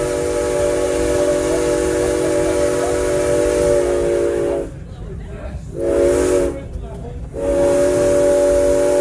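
Steam locomotive's chime whistle sounding a chord of several tones over a hiss. A long blast stops about halfway through, a short blast follows, then another long blast begins.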